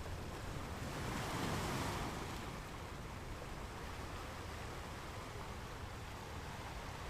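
Ocean waves breaking and washing on the shore, one wave swelling to its loudest about a second and a half in and then easing into a steady hiss of surf.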